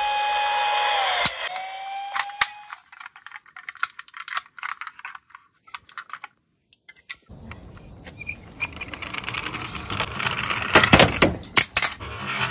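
A police siren wail that drops away about a second in, then a run of light clicks and taps from handling a die-cast Toyota HiAce police van toy. After a brief silence, a rumbling rattle with sharp clicks as the toy van rolls on a wooden slope.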